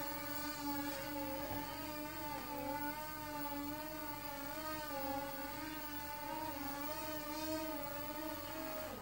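The two small electric motors and propellers of a homemade RC blimp whining steadily, pitch wavering a little with throttle changes. The sound cuts off abruptly at the very end.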